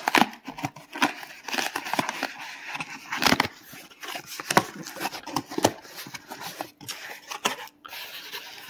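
Cardboard shipping box being opened by hand: flaps pulled and torn back with irregular crackling, scraping and rustling, and one louder rip a few seconds in.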